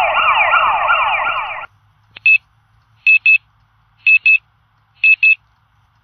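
Electronic alarm sound: a loud warbling tone of rapid rising sweeps, about three a second, that stops suddenly under two seconds in, followed by short high beeps in pairs about once a second.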